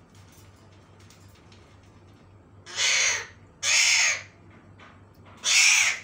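Alexandrine parakeets giving three loud, harsh screeching calls, the first two close together about three seconds in and a third just before the end.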